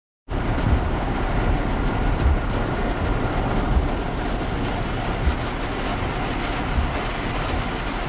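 Heavy rain pounding on a truck's roof and windshield, heard from inside the cab, with a low rumble and occasional thumps underneath.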